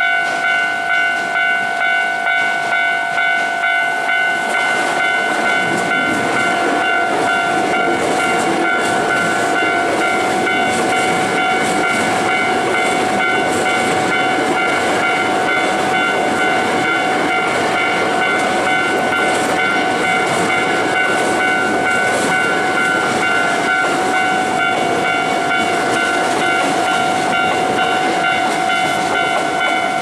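Japanese level-crossing alarm ringing in rapid repeated electronic dings. From about five seconds in, a Hankyu electric train runs past over the crossing, a loud rush of wheel and rail noise over the bell. The bell stops right at the end.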